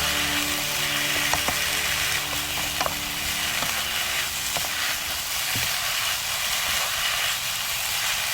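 Julienned potatoes sizzling steadily as they stir-fry in oil, with a few light clicks from stirring.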